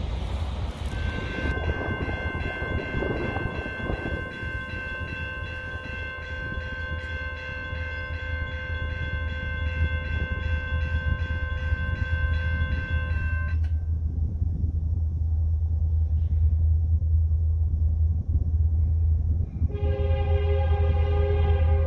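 CN SD60 diesel locomotive sounding a long, steady multi-note horn blast that cuts off about halfway through. A second horn blast starts near the end, with short breaks in it. A low rumble runs underneath throughout.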